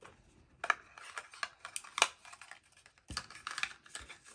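A wax seal stamp and its small box being handled and packed up: a string of sharp clicks and taps with light rustling, the loudest tap about two seconds in and a dull thump a second later.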